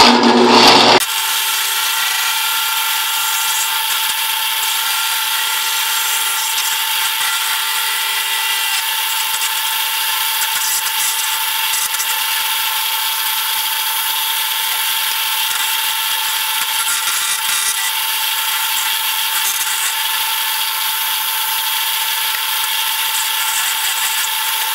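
Harbor Freight drill press, converted to a mill, spinning a small ball-shaped carving burr at high speed as it cuts into the bowl of a wooden spoon: a steady high whine over the hiss of the cutting, a little louder in the first second.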